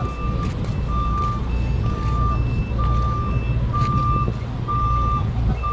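Wing van truck's reversing alarm beeping steadily about once a second, with the truck's engine running underneath. The truck is backing up.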